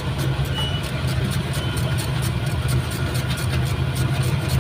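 An engine idling steadily with a low hum and a fast, light, regular ticking.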